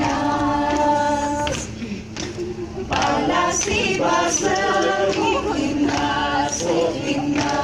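A group of voices singing unaccompanied, a chanted highland song in long held notes. The singing breaks off briefly about two seconds in, then starts again.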